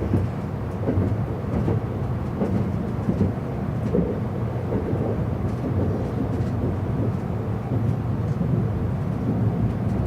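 Cabin noise inside a JR East E259 series Narita Express running at speed: a steady low rumble of wheels on rail and running gear.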